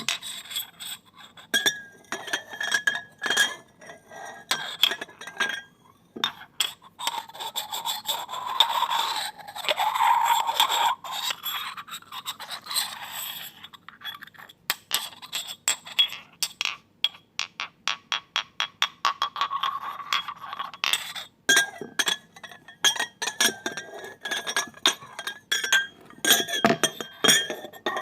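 Two glasses clinking and tapping together, each strike ringing on with a clear tone. Near the middle the glasses scrape against each other for a few seconds, then come a fast run of light taps and more clinks.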